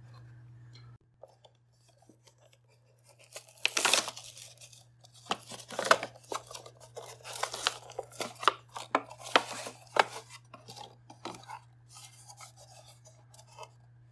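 Hands handling a cheap plastic mechanical kitchen timer: irregular clicks, taps and rubbing of plastic, starting a few seconds in and thinning out near the end, over a faint steady hum.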